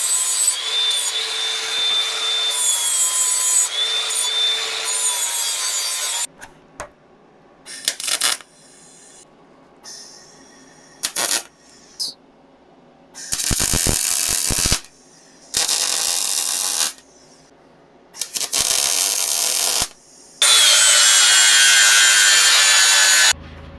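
Grinder beveling the ends of steel tubes, its motor whining steadily with brief dips. After it come several short bursts of arc welding, each about a second or so long, with crackles between them, as end caps are welded onto the tubes. A last stretch of grinding follows, its whine slowly falling in pitch.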